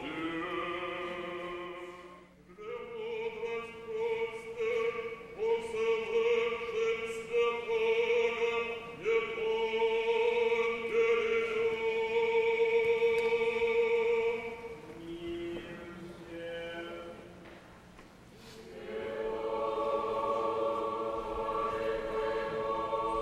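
Church choir singing Orthodox liturgical chant unaccompanied, in long held chords. There is a short break about two seconds in, and the singing grows quieter for a few seconds near the end before swelling again.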